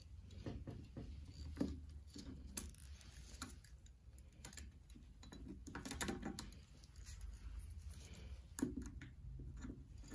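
Small metallic clicks and scrapes of circlip pliers and a circlip being worked into the end of a suspension fork stanchion, irregular and light, over a low steady hum.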